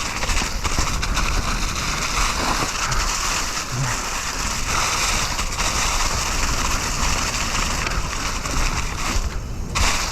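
Steady rushing noise of wind across the microphone and mountain bike tyres rolling over dirt, briefly dropping away near the end.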